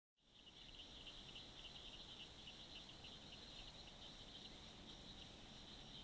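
Pine woods treefrogs calling in chorus: many rapid, clicking, Morse-code-like calls overlapping into a steady high rattle.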